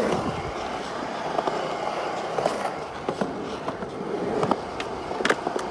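Skateboard wheels rolling steadily, with a few sharp clacks scattered through.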